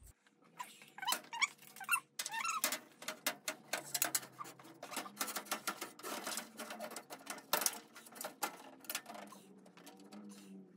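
A glass shelf being pushed into a metal-framed glass display cabinet, squeaking and scraping against the frame with many small clicks and clinks. The uploader calls it horrible screeching.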